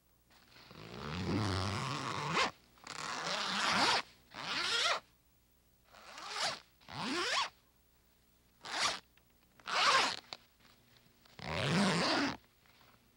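Zippers being zipped, about eight separate zips of different lengths, the first and longest lasting about two seconds, several of them rising in pitch as the slider runs.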